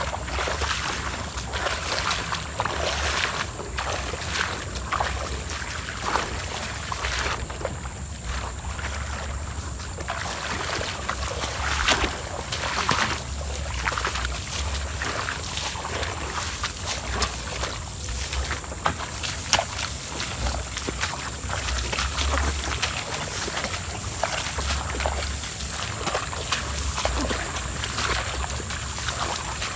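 Boots tramping through tall, wet marsh grass and shallow water, with grass swishing and irregular squelching, sloshing steps.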